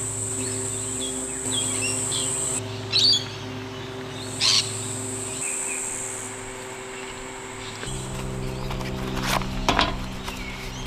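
Birds chirping in short calls, twice loudly in the first half, over a high insect buzz that stops and starts and a low steady hum. In the last few seconds, clicks and rustling as the fabric bag of a collapsible kitchen sink is handled.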